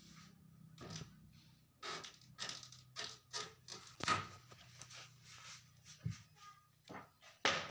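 Irregular clicks, taps and scrapes, about a dozen, from an electrical panel and its wiring being handled, with the loudest knock about four seconds in. A faint low hum runs underneath.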